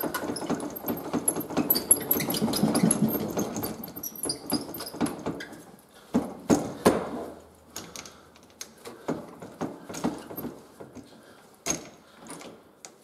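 Metal clattering and knocking of parts being handled at a metal lathe, busy and continuous for the first few seconds, then scattered knocks and clicks with one louder clank about halfway through.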